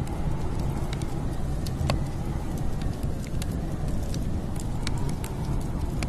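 Steady low wind rumble with sparse, irregular crackles and pops from a wood fire burning in a fireplace.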